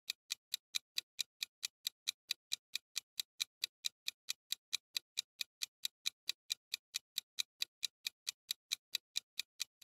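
Clock-ticking sound effect of a quiz countdown timer: short, even ticks at about five a second.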